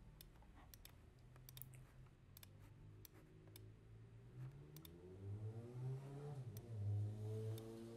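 Computer mouse clicking now and then at the desk. A faint low hum swells in the second half and rises and falls in pitch.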